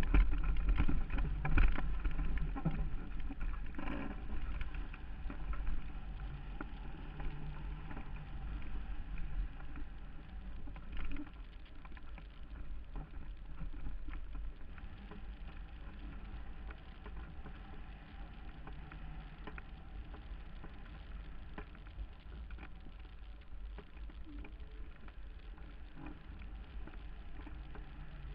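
Wind rushing over a camera mounted on a hang glider in flight: a low rumbling buffet, strongest in the first few seconds, then easing to a steadier rush.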